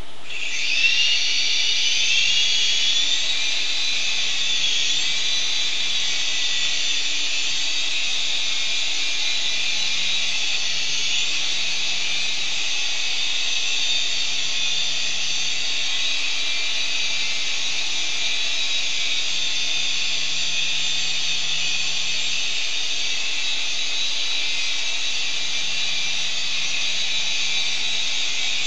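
Syma S107 mini RC helicopter's small electric motors and two counter-rotating rotors running: a high whine that starts and rises in pitch over the first few seconds as the rotors spin up, then holds steady with small wavers in pitch while it hovers.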